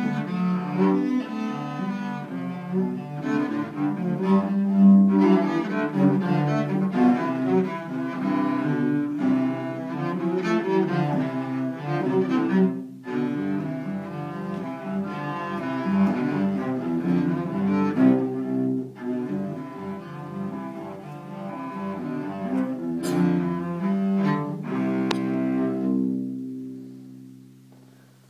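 Two cellos playing a duet, ending on a long held chord that dies away near the end.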